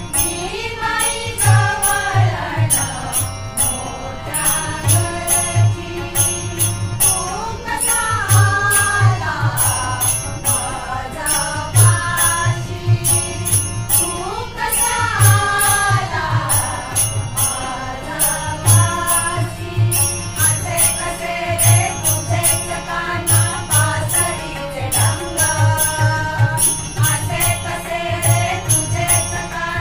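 Group of voices singing a devotional Ganpati bhajan with harmonium accompaniment, driven by steady tabla strokes and small hand cymbals struck in an even rhythm.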